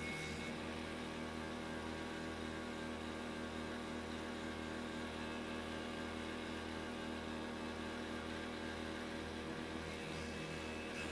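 Electric water-pump motor driving a homemade vegetable chopper's grass-cutter blade, running at a steady speed with an even hum.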